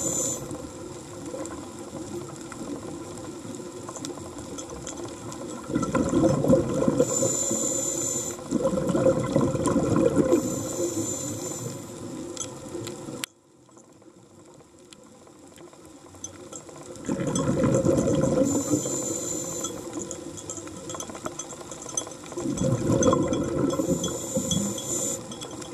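A scuba diver breathing through a regulator underwater: long gushes of exhaled bubbles every few seconds, with short bursts of air hiss. It cuts off suddenly about 13 seconds in and stays quiet for about four seconds before the bubbling resumes.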